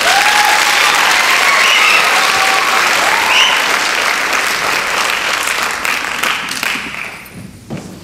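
Audience applauding, with a few voices whooping over the clapping; the applause dies away near the end.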